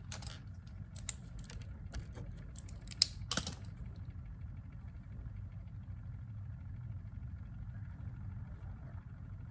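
Keystrokes on a mechanical keyboard with Gateron Yellow linear switches: a short, irregular run of about ten key clicks that stops about four seconds in. A steady low hum runs underneath.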